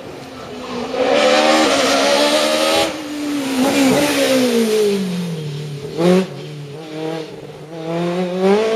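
Sports-prototype race car engine at high revs, passing close by; it rises sharply about a second in, then its pitch falls over the next few seconds, with a short sharp rev blip about six seconds in. Near the end an engine revs up again.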